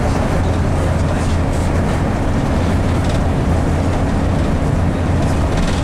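Inside a bus cabin: the steady low drone of the bus's engine under way, mixed with road rumble.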